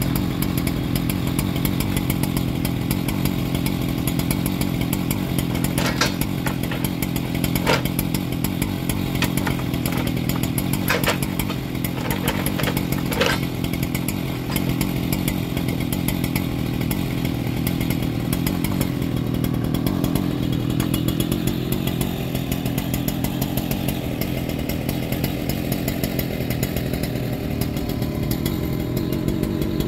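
Engine running steadily throughout, with several sharp knocks between about six and thirteen seconds in.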